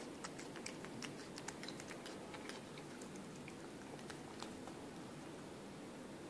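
A cat licking and chewing wet food from a stainless steel bowl: quick, faint wet clicks of tongue and teeth, thick in the first two seconds or so and fewer after.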